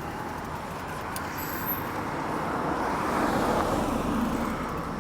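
Road traffic noise: a steady hiss of passing cars swells louder over a few seconds, peaks about three to four seconds in, then eases off a little.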